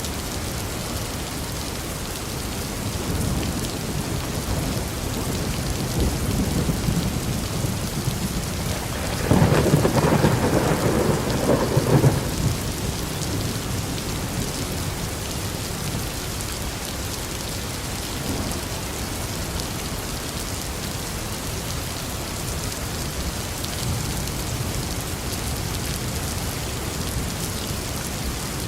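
Steady rain falling in a thunderstorm, with a roll of thunder that swells up about nine seconds in and dies away after about three seconds, and a fainter rumble a few seconds earlier.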